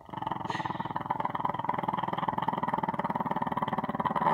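Small dog growling in one long, unbroken growl with a fast rattle to it, a big growl for a little dog.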